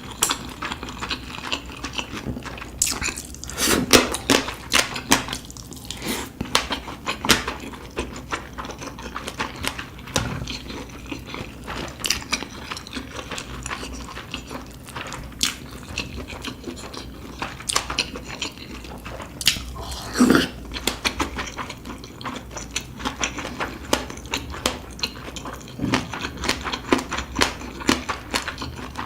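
A person eating: chewing and biting food, with many irregular short clicks, loudest in clusters a few seconds in and around the middle.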